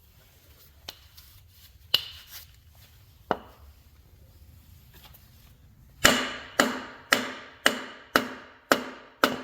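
Hammer blows on a block of wood, driving a pilot bushing bearing into the end of an LS V8's crankshaft. A few spaced taps come first, then a run of seven strikes about two a second near the end; the bearing is a tight fit and goes in little by little.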